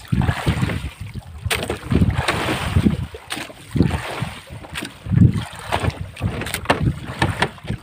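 Irregular low thumps and watery rumbles from a small outrigger boat on the water, with wind on the microphone and a few sharp clicks of handling in the boat.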